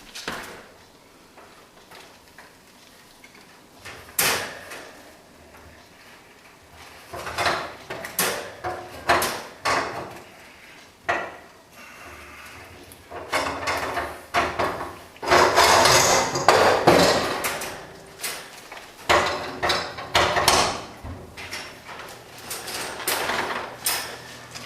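Irregular knocks, clatter and scraping as a cage is worked into a fireplace and the flue damper is opened, with a louder stretch of rattling and scraping about halfway through.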